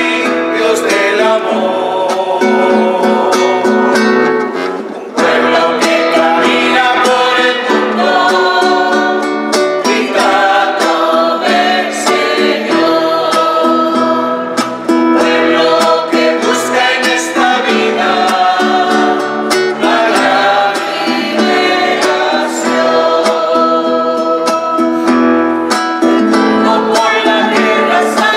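Mixed church choir of men and women singing together, accompanied by strummed acoustic guitar and electric bass, with a short break between phrases about five seconds in.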